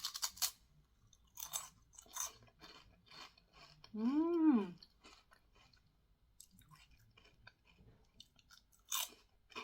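Mentaiko-flavoured potato crisp being bitten and chewed close to the microphone: sharp crunches at the start, again between one and two seconds in, and once more near the end. About four seconds in comes a short hummed "mmm".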